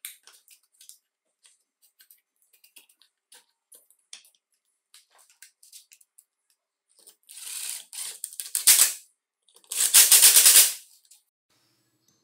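Light clicks and taps of small chainsaw parts being handled while the ignition coil is fitted, then two loud bursts of rapid rattling clatter, about seven and ten seconds in.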